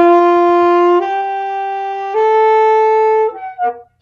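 Saxophone playing long notes in a slow rising scale, three held notes stepping upward, each about a second long. Near the end come a few short, unsteady notes.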